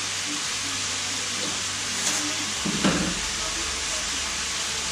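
Cubed chicken breast frying in oil in a pan, a steady sizzle, with a single thump a little under three seconds in.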